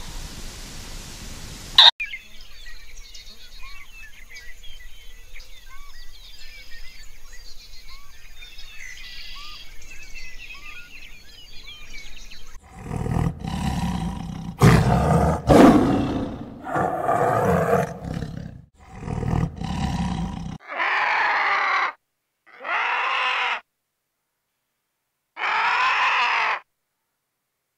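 Faint bird chirps over a quiet hiss, then a white tiger roaring in several loud calls for about eight seconds. These are followed by four short calls of about a second each, with silent gaps between them.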